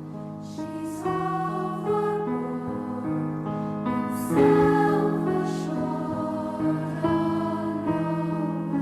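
Background music: slow, soft sustained chords with choir-like voices and piano, swelling about four seconds in.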